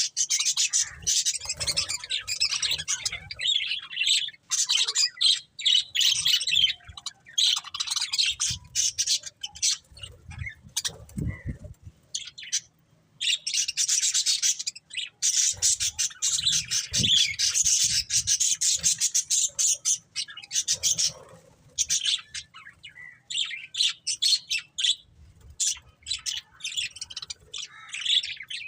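Budgerigars chirping in rapid, high-pitched runs of several seconds, broken by short pauses.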